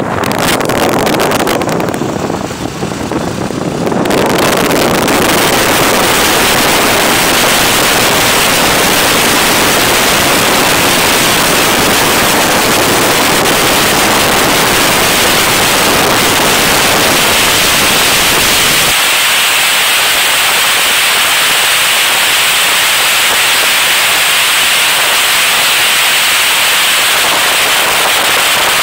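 Loud, steady rushing noise from a moving motorcycle: wind buffeting the phone's microphone along with road noise. About two-thirds through, the low rumble drops away and a hiss remains.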